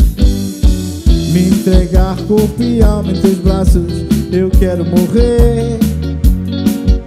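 Live band music: electric guitar, bass guitar, keyboard and a drum kit playing a song with a steady beat.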